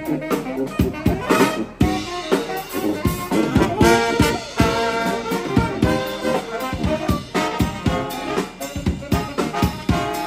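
Live brass band playing an upbeat jazz tune: saxophones, trombone and trumpet carrying the melody over a bass horn and a drum kit keeping a steady beat.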